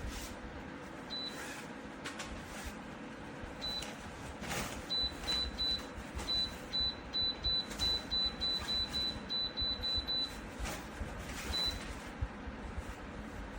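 Electric fan heater's control panel beeping: short, high single-pitch beeps, one per button press. A few come singly, with a quick run of about three a second in the middle as a setting is stepped through.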